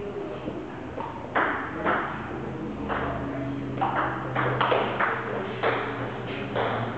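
Table tennis rally: a string of sharp, irregularly spaced clicks as the ball is hit by the paddles and bounces on the table, starting about a second and a half in.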